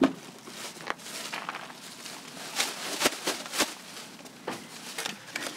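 Scattered rustles and light clicks of a food bag and packaging being handled, a handful of short sharp ticks spread over several seconds.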